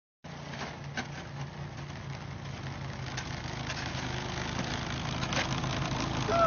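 An engine running steadily at idle: a low hum with a hissy noise over it that grows a little louder.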